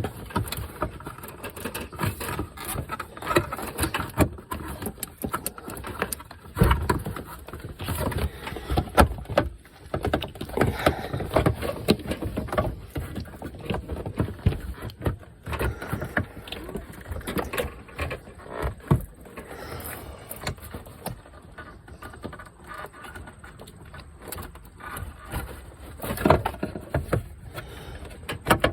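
Plastic knocking, clicking and scraping as a stuck turn signal lens assembly is worked loose by hand.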